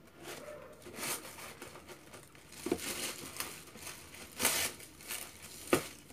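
Paper shopping bag and the wrapping around a pair of shoes rustling and crinkling in several bursts as the shoes are pulled out, with a sharp knock near the end.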